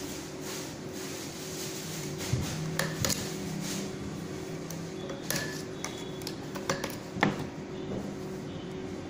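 Scattered sharp clicks and clinks of small parts as a bearing is worked off the end of a copier's OPC drum, the loudest about seven seconds in, over a steady low hum.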